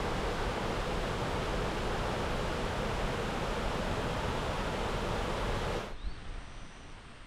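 Steady rush of falling or flowing water. It cuts off abruptly about six seconds in, leaving a quieter background with a few faint, high, short chirps.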